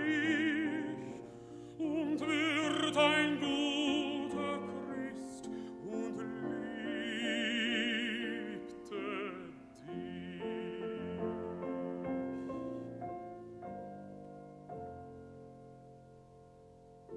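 Baritone singing a German art song with strong vibrato over piano accompaniment; the voice ends about ten seconds in, and the piano plays on alone, growing steadily softer.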